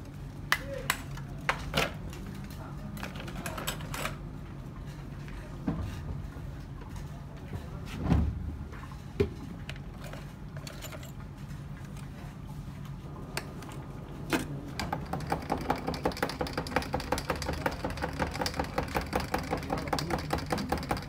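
A metal spoon striking a block of ice, giving scattered sharp knocks, then about two-thirds of the way in a fast, even clinking, about six a second, as the spoon stirs a drink in a glass. A steady low hum runs underneath.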